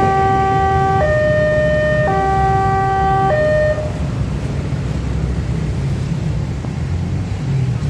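Indonesian level-crossing alarm sounding its two-tone pattern, a higher and a lower tone alternating about once a second. It cuts off a little under four seconds in as the crossing clears and the barriers lift. A steady low rumble of waiting motorcycles and street traffic runs underneath and carries on.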